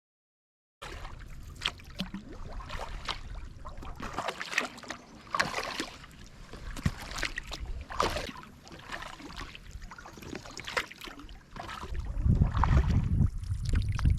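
Kayak paddle strokes: water splashing and dripping off the paddle blades in an uneven rhythm, a stroke every second or two, with a low rumble near the end. The sound starts abruptly just under a second in.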